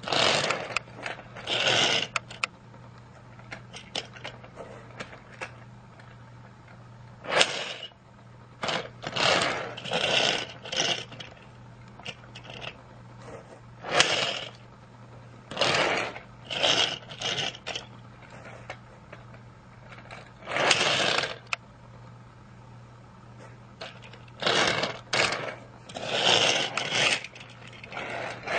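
Plastic toy train set rattling and scraping in irregular short bursts, each lasting up to about a second, over a steady low hum.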